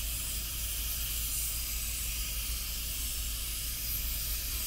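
Steady hiss of steam escaping from the vent of an aluminium Afghan kazan pressure cooker that is up to pressure.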